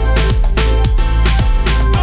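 Background music with a steady electronic beat and heavy bass.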